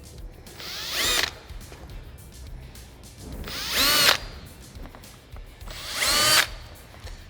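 Power drill run in three short bursts, each rising in pitch as it spins up and then stopping abruptly, while holes are drilled for the cab enclosure's snaps.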